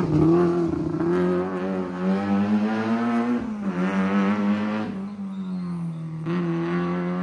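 Rally car engine accelerating hard away from a hairpin, its pitch climbing and dropping back at each upshift, several times, growing fainter as the car pulls away.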